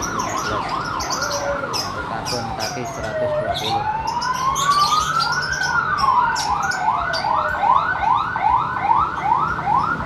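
Emergency vehicle siren: a slow wail that falls, rises and falls again, overlapped by a fast yelp of about three rising sweeps a second that gets louder in the second half. Caged birds chirp over it.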